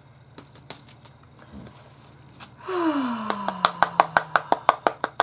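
A woman's long, breathy groan that falls in pitch and is held, about halfway through: an exasperated reaction to a crafting mistake. It is overlapped by a quick, even run of light clicks, about six a second, that lasts to the end.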